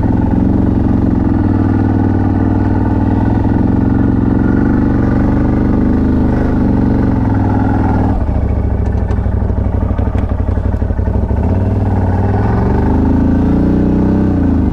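CFMoto 1000 ATV's V-twin engine running under steady throttle. About eight seconds in it drops to a lower, uneven pulsing, then revs back up in the last few seconds.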